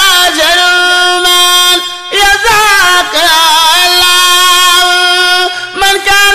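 A man singing a Mouride khassida, an Arabic devotional poem, solo in long held notes that waver and turn. The voice breaks off briefly about two seconds in and again near the end.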